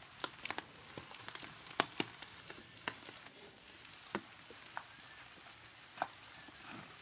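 Rain dripping, with irregular sharp drops tapping onto hard surfaces over a light steady hiss.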